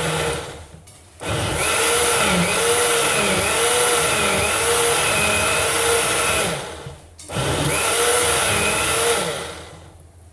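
Countertop blender running at full speed, blending a shake, its pitch wavering as the mix churns. The motor cuts out twice for about half a second and starts again, then winds down and stops near the end.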